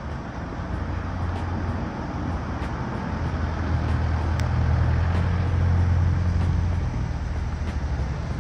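Low engine hum of a motor vehicle running, getting louder about four seconds in and easing off near the end.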